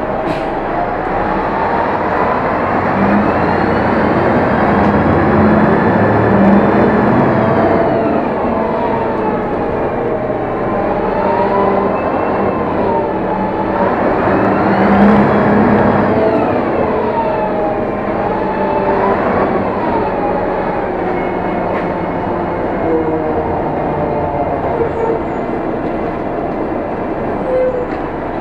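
City bus driving, its engine and drivetrain whine rising and falling in pitch several times as it speeds up and slows down, over a steady road rumble.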